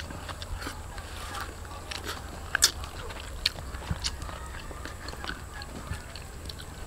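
Close-up eating sounds: chewing and biting food, with scattered sharp clicks and smacks, the loudest about two and a half seconds in.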